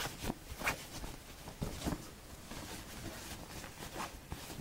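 Denim and cotton fabric rustling and brushing as a sewn denim bag and its lining are handled and pushed about, with a few short sharper scuffs.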